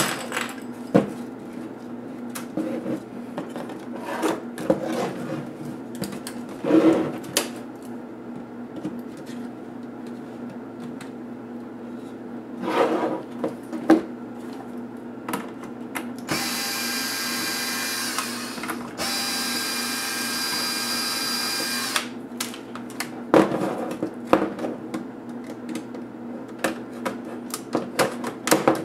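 Clicks and knocks of the ASUS K40IN laptop's plastic case being handled. Partway through, an electric screwdriver runs steadily for about five seconds, with a brief break near the middle, as screws are driven out of the case.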